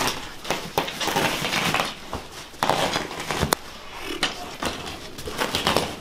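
Carpet being rolled up by hand: irregular scraping and rustling of the carpet backing over the floor, with scattered clicks and one sharp click about three and a half seconds in.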